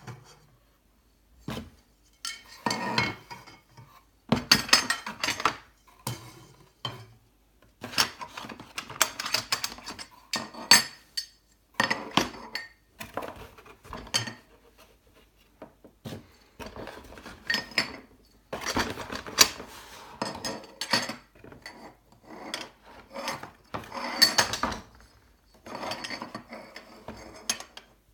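Black aluminium extrusion rails of a delta 3D printer frame being taken from a cardboard box and laid on a table, clinking and scraping against each other in irregular bursts of metallic clatter.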